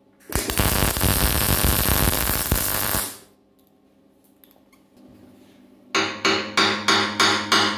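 MIG welder tack-welding a black steel pipe socket onto a steel gasifier body: about three seconds of steady crackling hiss that stops suddenly. About six seconds in, a ball-pein hammer starts tapping the tacked socket, about three ringing steel strikes a second.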